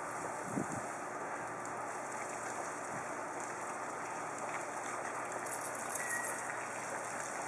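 Steady hiss and patter of water spraying from a garden hose and falling on the ground, with a small knock about half a second in.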